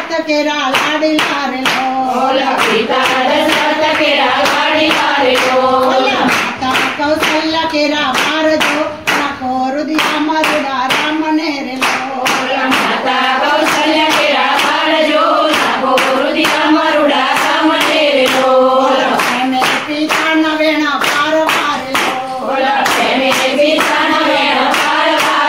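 A group of women singing a devotional bhajan in unison, keeping time with steady, rhythmic hand clapping.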